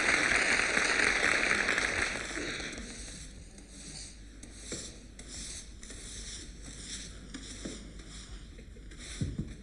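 Push broom sweeping cobblestone pavement, bristles scraping in strokes. The scraping is loud for the first two seconds or so, then goes on as softer separate strokes, with a short low thump near the end.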